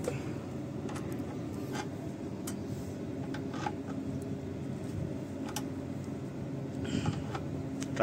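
Bus engine idling steadily while the air-conditioning compressor is being charged with refrigerant, with a few faint clicks over the hum.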